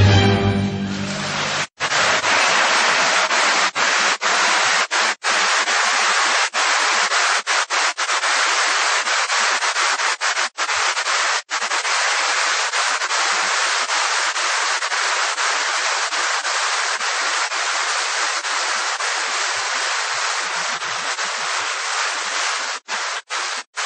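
Loud, steady hissing noise on an action camera's microphone, like friction or wind noise, broken by several sudden, brief dropouts to silence.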